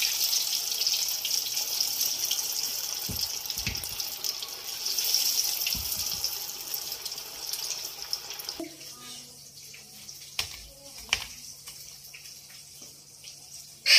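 Batter-coated chicken pieces deep-frying in hot oil, a steady sizzle that stops about two-thirds of the way through; this is the first fry on a high flame, taking the chicken about 80% done. A few light clicks follow.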